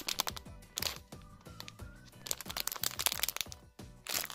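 Clear plastic packaging crinkling and crackling in short bursts as a foam toast squishy is gripped and squeezed through its bag, over faint background music.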